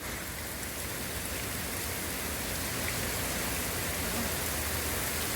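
Steady rain falling during a summer thunderstorm, an even hiss at a constant level.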